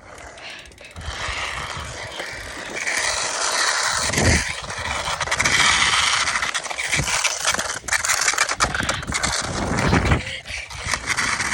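Continuous rough rolling and scraping noise of a toy car being dragged on ropes behind a moving bicycle, with many small clicks and a level that rises and falls. There are two short low thumps, about four and ten seconds in.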